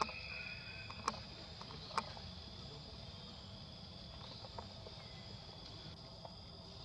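Forest insects buzzing in a steady high drone, with a few sharp clicks, two of them about one and two seconds in.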